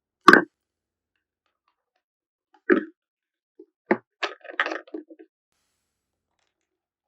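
A few short knocks and clicks: a sharp one just after the start, another near the middle, then a quick cluster of small clicks and rattles lasting about a second.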